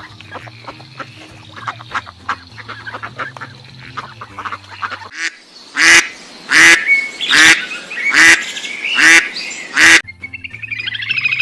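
Ducks quacking in quick, overlapping calls over light background music, then six loud single calls a little under a second apart. Plucked guitar music begins near the end.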